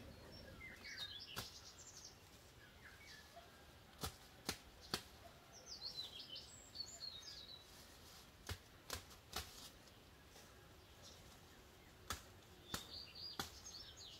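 Faint outdoor ambience with birds chirping in short bursts three times. Sharp clicks or snaps are the loudest sounds, coming three times in groups of three.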